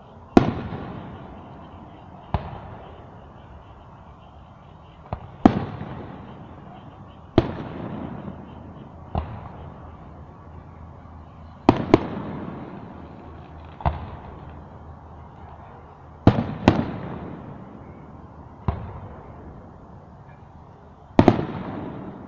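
Aerial firework shells bursting: about a dozen sharp booms, roughly one every two seconds, several in quick pairs, each trailing off over a second or so.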